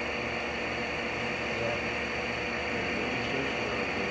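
Steady rumble and hiss of a subway train car running, heard from inside the car.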